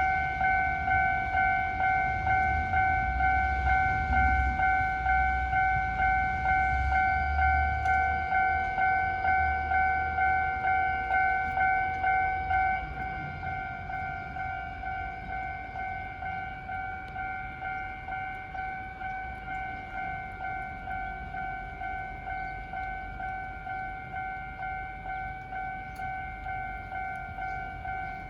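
Japanese railway crossing warning bell ringing, a steady clang about twice a second that starts suddenly, with a low rumble under it for roughly the first twelve seconds. About twelve seconds in the bell becomes noticeably quieter and keeps ringing.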